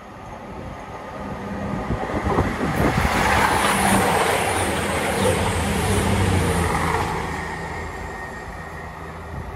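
Passenger train passing: it builds over about three seconds, is loudest for a few seconds in the middle, then fades, a rush of wheel and rail noise over a low, steady hum.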